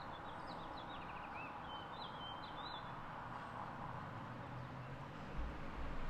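Several faint, short bird chirps in the first half, over a steady outdoor background noise, with a couple of low bumps near the end.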